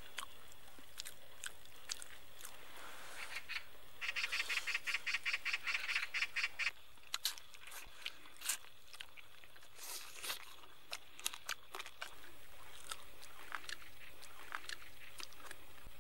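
Close-up eating sounds: chewing and crunching of roast chicken, with scattered short mouth clicks. About four seconds in comes a rapid harsh rattle of about six pulses a second, lasting some three seconds.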